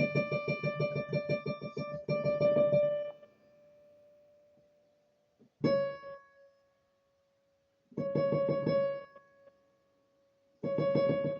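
Casio PX-350 digital piano with one key hammered rapidly and repeatedly on the same note, about eight strikes a second. The playing breaks off, a single note rings out, there is a short burst of repeats, and fast repeats start again near the end. The key is being test-played for its knocking and rattling action.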